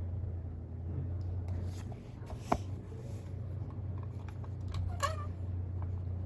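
Steady low hum with scattered light clicks and taps, one sharper click about two and a half seconds in, and a short wavering cry-like sound about five seconds in.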